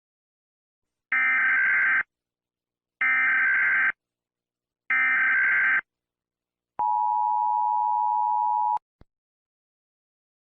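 Emergency Alert System tones: three short bursts of the warbling SAME digital header, each just under a second, then the two-tone attention signal held steady for about two seconds and cut off sharply, followed by a small click.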